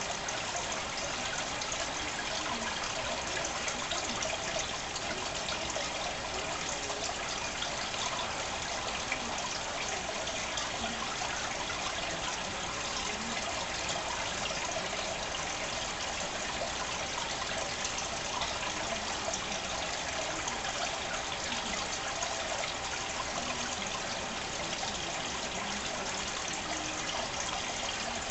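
Steady trickling and splashing of water in a home aquarium, the kind made by a filter's outflow running into the tank.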